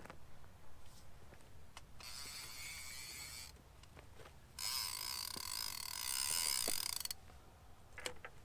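Fishing reel mechanism ratcheting in two runs, one of about a second and a half and then a longer one of about two and a half seconds, with a few faint clicks around them.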